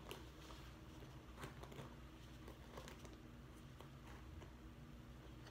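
Near silence: a few faint scratches of a hairbrush being pulled through hair, over a low steady room hum.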